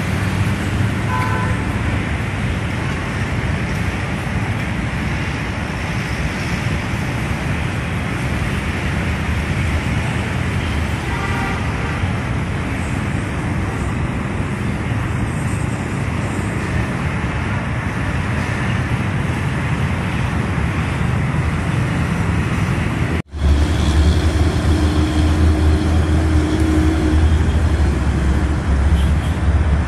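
Steady noise of city road traffic. A short break comes about three-quarters of the way through, after which a deeper rumble is louder.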